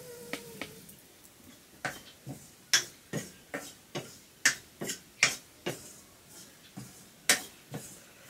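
Metal spoon knocking and scraping against an iron wok while stirring, sharp strikes about two a second from about two seconds in. A cat meows briefly at the start.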